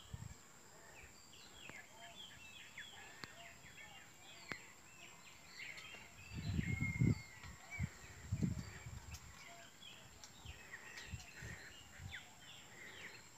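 Many small birds chirping in the background, lots of short calls scattered throughout. Two louder low rumbles, about six and eight seconds in, stand out above them.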